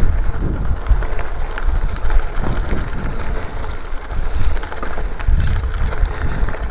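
Wind rumbling on the microphone of a bicycle riding over a loose gravel road, with tyre crunch and small scattered rattles.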